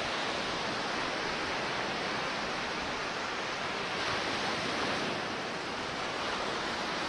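Steady, even rushing noise of ocean surf.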